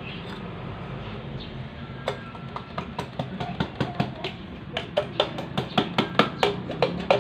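Motorcycle cylinder block being fitted onto the engine: sharp clicks and taps that start about two seconds in, then come quicker and louder, about three a second near the end, over a low steady hum.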